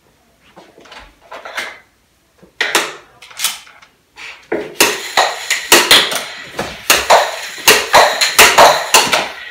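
Air hockey being played: the plastic puck and mallets clacking against each other and the table rails. A few scattered hits at first, then rapid, loud volleys from about halfway through.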